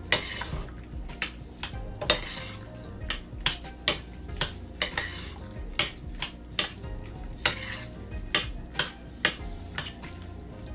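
Metal spoon stirring cooked elbow macaroni and shredded cheese in a stainless steel saucepan, mixing so the cheese melts: irregular sharp clinks of the spoon against the pot over the soft wet scraping of the pasta being turned.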